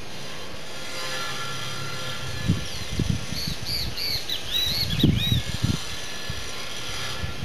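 A bird calling in a quick series of high, arched chirps through the middle of the stretch, over a steady outdoor hiss. Several low thumps on the microphone, the loudest sounds, come just before and during the chirps.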